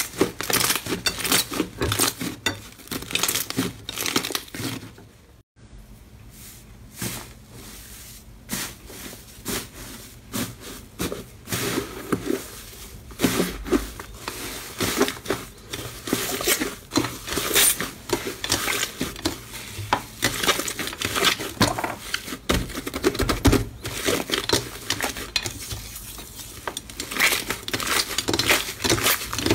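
Slime being squeezed, kneaded and torn apart by hand, making a dense run of quick wet crackles and pops. The sound breaks off briefly about five seconds in, then the crackling goes on as a softer, fluffier slime is pulled apart.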